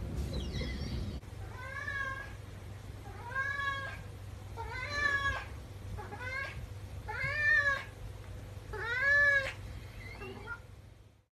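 Flame point Siamese cat meowing repeatedly while carrying a toy in its mouth: about seven long, arching meows, one every second and a half or so, the last few the loudest.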